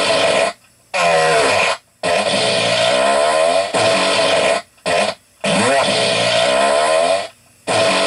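A run of fart sounds, about five in all. Most last a second or more, with a buzzy, wavering pitch that slides up and down, and they are separated by brief silences.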